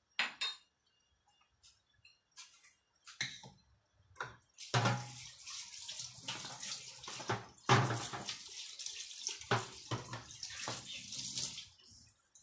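A few light clinks of dishes, then a kitchen tap running into a sink for about seven seconds, starting about five seconds in and stopping near the end.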